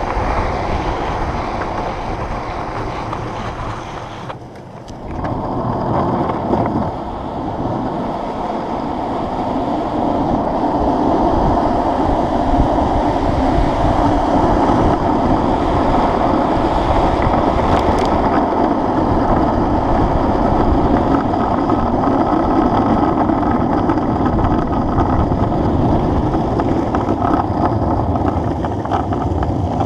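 Longboard wheels rolling over asphalt: a steady coarse rumble, with wind on the microphone. The rumble dips briefly about four seconds in.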